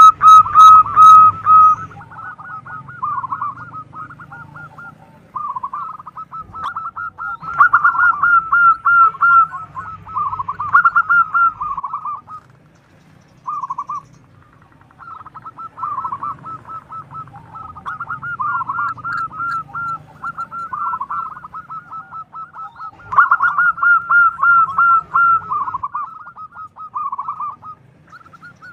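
Zebra dove (perkutut) cooing: runs of rapid, trilled coos, repeated phrase after phrase with short pauses between them.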